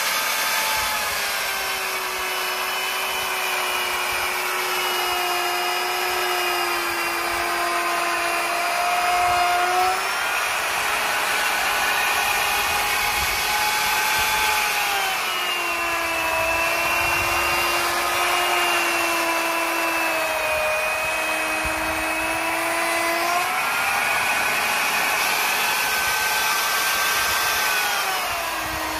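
Electric plunge router running in a homemade sled jig while surfacing a wooden board. A steady high motor whine rides over the hiss of the bit cutting. The pitch sags as the cut loads the motor and jumps back up about ten seconds in and again near twenty-four seconds.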